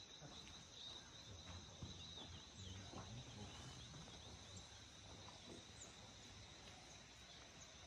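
Faint outdoor ambience of insects, crickets or similar, droning in two steady high-pitched tones, with a few faint short chirps.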